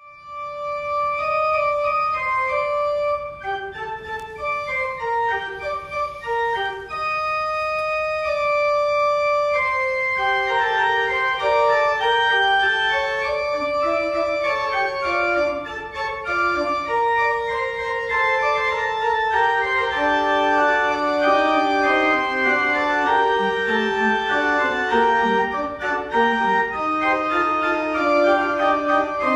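Church organ playing held, sustained notes in several parts, sparse at first and fuller from about ten seconds in, with a lower line moving down near the end.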